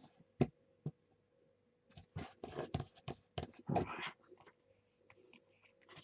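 Hands handling sheets and scraps of paper on a tabletop. A few sharp taps come in the first second, then a cluster of paper rustling and small knocks about two to four seconds in.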